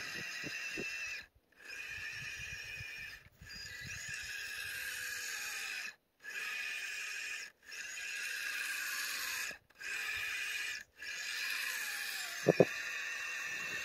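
Brushless electric motor and drivetrain of a 1/24-scale FMS FCX24 RC crawler whining steadily as it digs through deep snow, cutting out briefly six times. A pair of sharp thumps comes about a second before the end.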